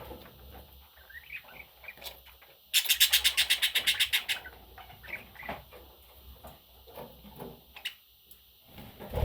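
Pet budgerigar making faint, scattered chirps and chatter, broken about three seconds in by a loud, rapid rattling of about nine pulses a second lasting under two seconds. A loud thump comes at the very end.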